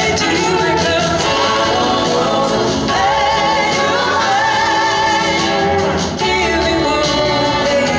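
A live band playing, with electric guitar and singing.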